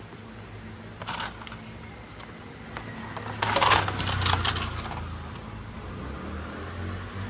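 Small metal parts and tools being handled during scooter wiring work: a brief clatter about a second in, then a louder run of clinks and rattling in the middle.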